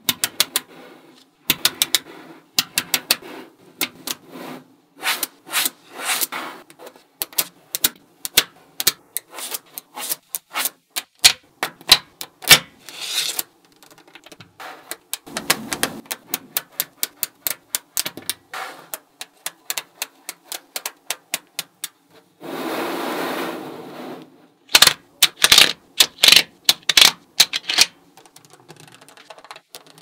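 Small magnetic balls clicking and snapping together as rows of them are set into a flat sheet, in irregular runs of sharp metallic clicks. About three-quarters of the way in, a continuous rattling rush lasts a second or so.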